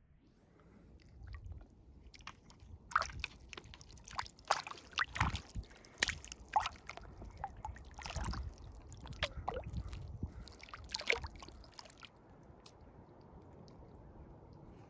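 Water sloshing and splashing close to the microphone in irregular bursts, busiest from about three to eleven seconds in.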